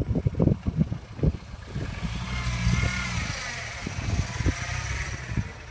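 Irregular low buffeting, like wind on the microphone, in the first second or so. Then a vehicle engine idles steadily, with a faint higher whine over it.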